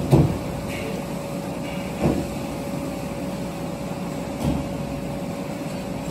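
Steady mechanical background hum with a faint steady tone running through it, and a few brief faint noises near the start, about two seconds in and about four and a half seconds in.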